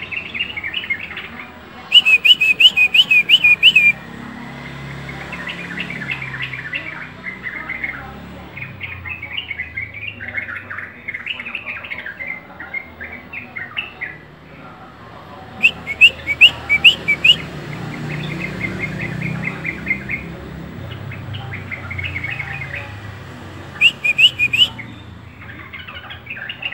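Birds chirping and twittering continually, with three loud runs of quick repeated chirps: about two seconds in, around the middle, and near the end.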